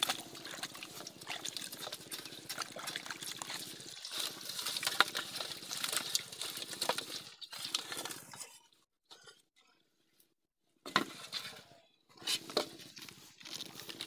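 Wet mud squelching and crackling as hands dig into a muddy hole. After a near-silent pause, wet knocks and splashing as muddy fish are handled in a metal basin.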